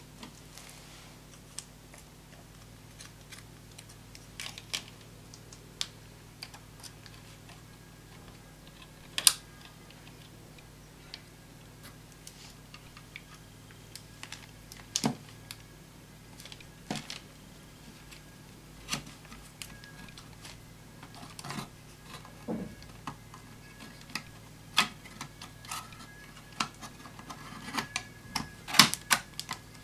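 Irregular clicks, taps and knocks from hands handling an Intel NUC mini PC and its DDR3 SO-DIMM memory modules, over a steady low hum.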